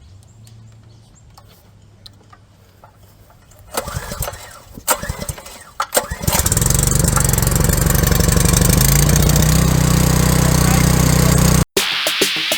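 Gasoline pressure washer engine being started: a few short sputters, then it catches about six seconds in and runs steadily, loud and even, until it cuts off abruptly near the end.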